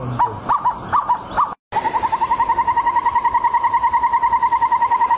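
Two animal calls cut one after the other. First comes a series of short, hooked call notes about two a second. After a brief gap, a steady, rapid trill of evenly pulsed notes follows, about a dozen a second.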